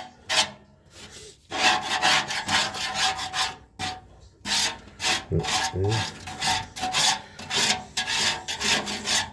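A scraper being dragged over and over across the bottom of an Oklahoma Joe's Highlander offset smoker's cooking chamber, scraping off caked greasy buildup. It makes quick rasping strokes, with brief pauses about a second in and again about four seconds in.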